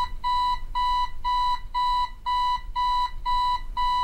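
Electronic alarm clock beeping, a single-pitched beep repeating evenly about twice a second.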